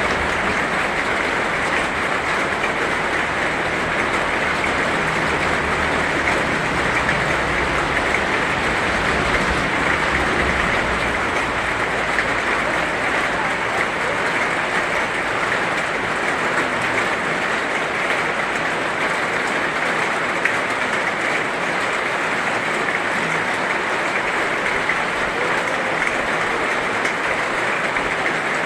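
Heavy rain falling in a dense, steady hiss. A low rumble runs underneath for the first twelve seconds or so and then fades out.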